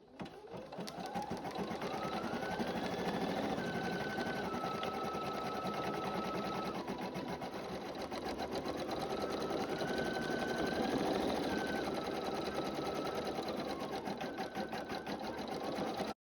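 Brother Innovis 880E embroidery machine stitching at speed, a rapid steady needle chatter with a motor whine that rises and falls in pitch twice. It cuts off suddenly at the end.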